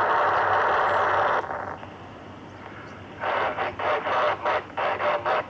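FM static hiss from a Baofeng UV-B6 handheld receiving the SO-50 satellite downlink. The loud hiss drops away about a second and a half in. From about three seconds in, a noisy signal cuts in and out rapidly: a weak, fading station breaking through the satellite.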